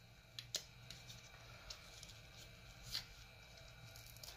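Faint handling noise of small items being picked up and moved: a few soft clicks and rustles, the loudest about three seconds in, over a low steady hum.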